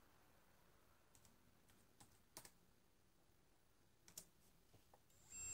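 Near silence with a few faint clicks, then about five seconds in the wafer-transfer robot's stepper motor starts up with a steady high whine, driving its miniature ball screw to spread the arm stages apart.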